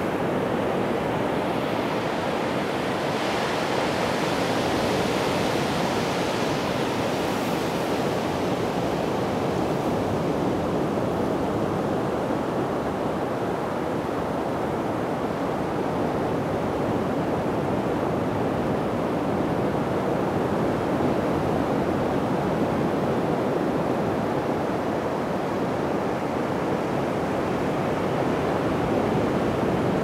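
Ocean surf breaking and washing up a sandy beach: a steady rush of waves, with a slightly hissier wash a few seconds in.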